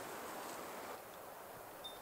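Faint outdoor ambience: a soft, steady hiss that drops a little about halfway through, with one very brief high note near the end.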